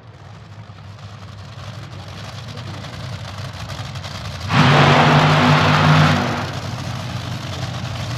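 Top Fuel dragster engines running at the starting line after their burnouts, a steady lower engine sound with one loud throttle burst lasting about a second and a half, about halfway through.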